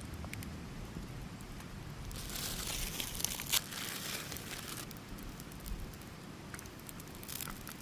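Plastic packaging crinkling as it is handled, in a long burst in the middle and a shorter one near the end, over a steady low rumble.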